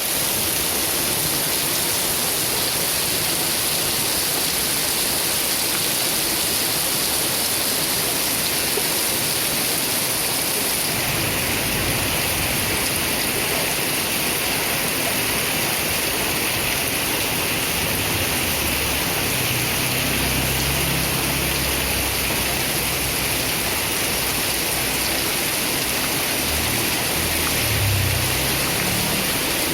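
Heavy rain falling steadily, a dense even hiss. From about a third of the way in, low rumbles of distant thunder come and go beneath it.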